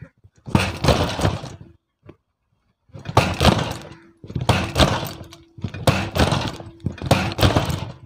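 Front fork of a CD-70 motorcycle being pumped down and released with the front brake held. Each of about five strokes gives a clattery knock from inside the front shock absorbers, the fault being demonstrated. There is a pause after the first stroke, then the strokes come roughly a second apart.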